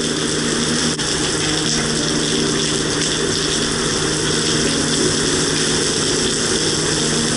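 Heavy thunderstorm downpour, rain falling hard and steadily, with a steady low hum underneath.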